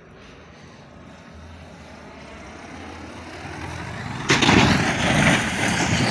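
A light aircraft's engine and rushing air growing steadily louder as it dives toward the ground, then a sudden loud crash about four seconds in as it hits the ground, the noise of the impact lasting about two seconds.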